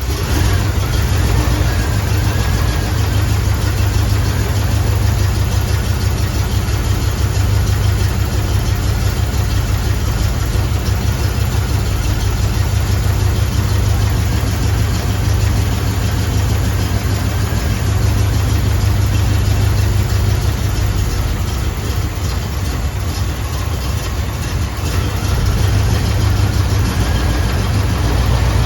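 Chevrolet 283 small-block V8 with throttle-body fuel injection running at a steady idle.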